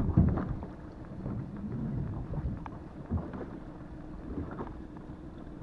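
Wind gusting on the microphone as a low, uneven rumble, strongest in the first half second. There is a short dull knock about three seconds in.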